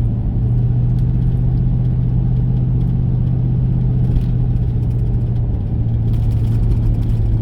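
A car engine and road noise heard from inside the cabin while driving: a steady low drone over tyre rumble. Its pitch steps up slightly just after the start and drops a little past halfway, as the speed or gear changes.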